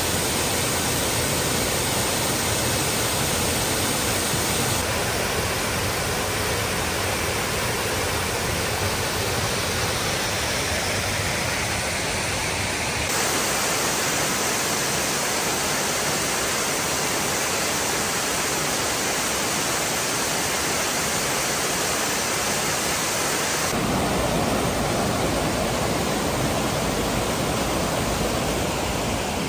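Waterfalls and a cascading stream rushing steadily, a full, even roar of falling water. Its tone changes abruptly three times, as one fall gives way to another.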